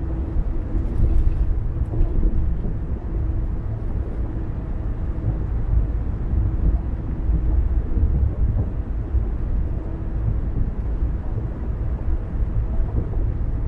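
A car driving at steady speed: continuous low road and tyre rumble, with a faint steady hum.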